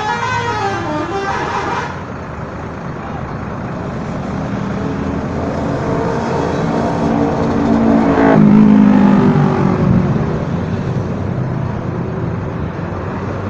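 A coach's multi-tone 'telolet' musical horn playing its tune for about the first two seconds, then a bus engine running with traffic, growing louder to a peak a little past the middle and easing off again.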